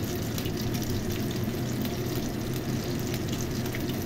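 Chicken steaks frying in shallow oil in a nonstick wok: a steady sizzle with many small crackles.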